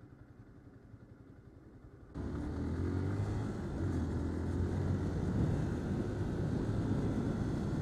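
Yamaha R15's single-cylinder engine idling quietly at a standstill. About two seconds in, the bike pulls away and the engine gets suddenly much louder, running under throttle.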